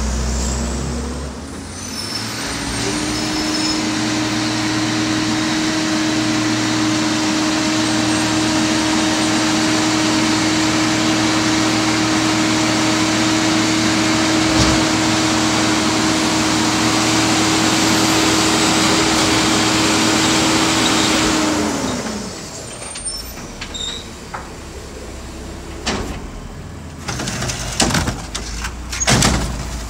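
Mack garbage truck's diesel engine revving up about two seconds in and holding a steady high pitch for some twenty seconds. This is typical of the engine being raced to run the Wittke front loader's hydraulics. About 22 seconds in it drops back to idle, followed by scattered metallic clanks and knocks.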